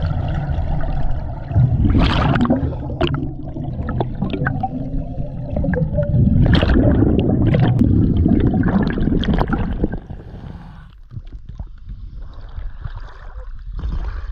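Scuba exhaust bubbles gurgling past an underwater camera, in long surges a few seconds apart; it turns much quieter about ten seconds in.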